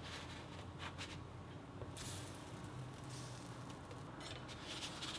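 Slotted spatula scraping softly on a non-stick frying pan as a pancake is lifted and flipped: a few light clicks, then short hissing rushes about two seconds in and again near the end.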